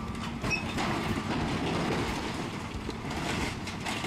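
New Holland excavator running while its demolition shear tears through an aircraft fuselage, with irregular clanking and crunching of metal over a steady engine hum.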